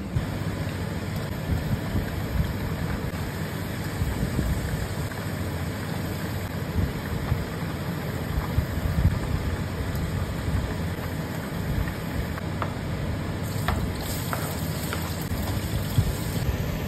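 Steady low rumble with a hiss, the running noise of stovetop cooking in a wok, with oil frying in the pan and a few light clicks of a utensil against the pan near the end.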